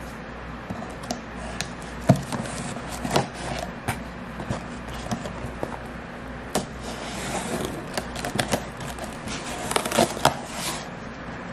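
Folding knife blade slicing packing tape along a cardboard box's seam, with irregular clicks and scrapes from the blade and hands on the cardboard and a longer scratchy cut about seven seconds in.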